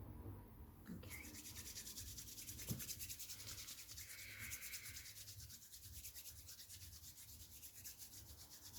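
Faint, rapid, even rubbing, several strokes a second, starting about a second in.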